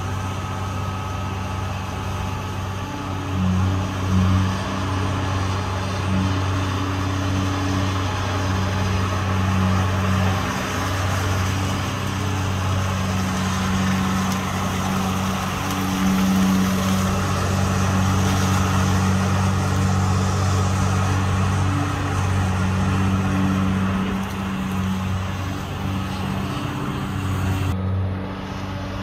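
Diesel engine of a long-reach excavator working a dredging bucket from a pontoon, running with a steady low hum that swells and eases as the arm works.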